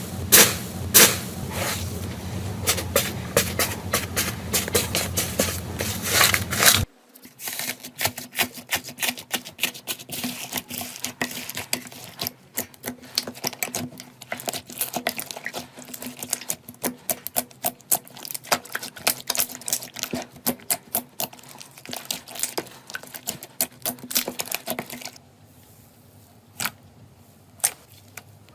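Slime being squeezed and poked by hand close to the microphone, giving rapid, irregular crackling and popping clicks as air pockets burst. It cuts about seven seconds in to a quieter clip of denser pops, and the pops thin out near the end.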